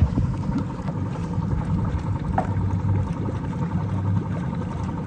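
Inboard engine of a 1996 Volvo Penta SX Cobra sterndrive boat running steadily in neutral, its exhaust bubbling out through the drive into the water. The exhaust sound is taken for a leaking exhaust bellows.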